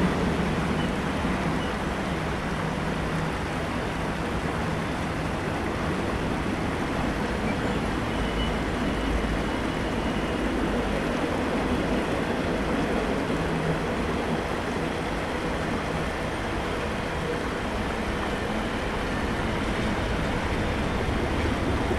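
Norfolk Southern double-stack intermodal freight train rolling past steadily, its container and trailer cars running on the rails in an even, unbroken noise.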